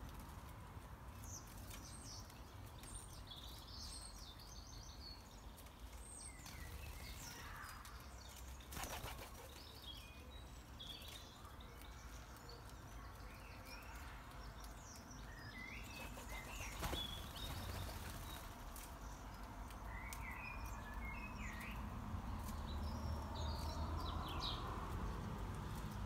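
Small garden birds chirping and calling on and off, with a few brief wing flaps as birds come and go at the feeder, over a steady low rumble.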